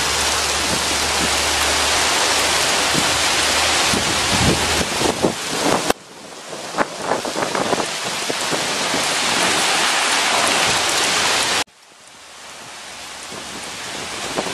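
Heavy rain with pea-sized hail falling on a concrete rooftop parking deck: a steady, even hiss with scattered sharp ticks of hailstones. The sound drops away suddenly twice, about six seconds in and near the end, and builds back up each time.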